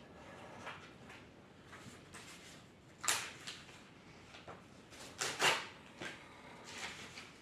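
A drawing tool scratching across paper in a few short strokes, the loudest about three and five seconds in.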